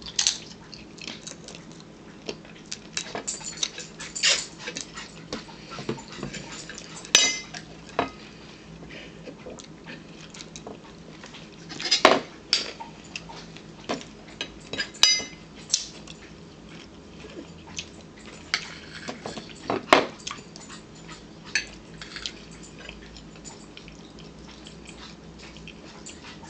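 Table eating sounds: scattered sharp clinks of cutlery and dishes against plates and glass, a few of them ringing briefly, among small chewing and handling noises.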